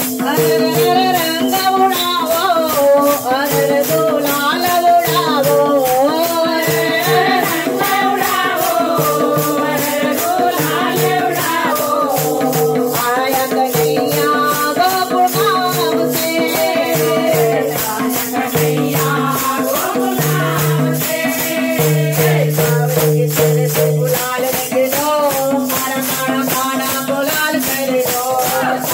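A group of women singing a Gujarati ras song in unison, with hand-held wooden kartal clappers fitted with jingles shaken in a steady fast rhythm, over a held drone.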